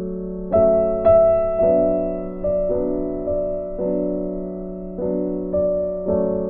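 Background piano music: soft, slow chords on a piano or electric piano, a new chord struck every half second to a second and left to fade.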